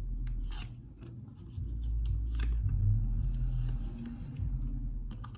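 Tarot cards being handled, with scattered soft rustles and clicks, over a low rumble that swells from about one and a half seconds in.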